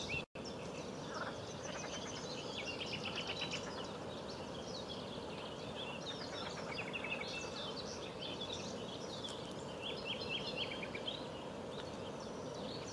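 Small songbirds chirping and singing in quick, overlapping notes over a steady outdoor background hiss. The sound cuts out for a moment just after the start.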